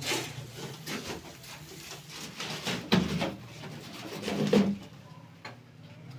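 Wooden-framed wire-mesh cage being handled into place: knocks, clatter and scraping of the wooden frame, loudest about three seconds in and again about four and a half seconds in, over a steady low hum.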